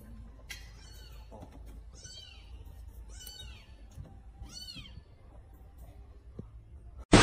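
Kitten mewing: about six short, high-pitched meows, roughly one a second, which stop about five seconds in. A sudden loud noise breaks in at the very end.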